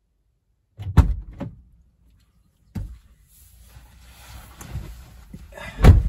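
Driver's door of a 2012 Ford Escape, heard from inside the cabin: the door clunks open about a second in, then there is rustling as someone climbs into the seat, and the door shuts with a loud thump near the end.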